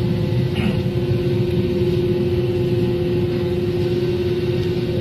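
Steady drone inside a jet airliner's cabin, engines running with a constant hum over a low rumble, as the plane moves on the ground before takeoff.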